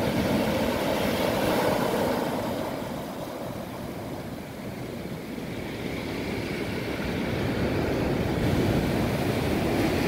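Sea waves breaking and washing up a pebble beach: a steady rush of surf that eases a few seconds in and then builds again.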